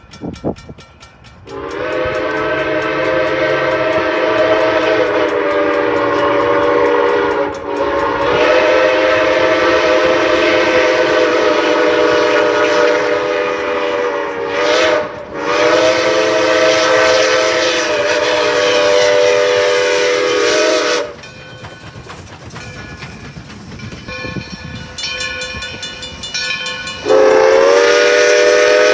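Steam locomotive whistle sounding a chord of several close pitches, blown in three long blasts with short breaks between them. After the blasts it stops, and quieter train clatter is heard for several seconds before another long blast begins near the end.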